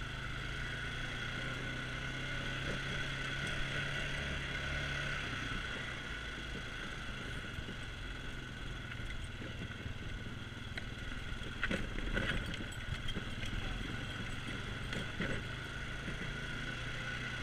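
ATV engine running steadily while the quad drives over a rough woodland trail. A few knocks and rattles from bumps come in the second half.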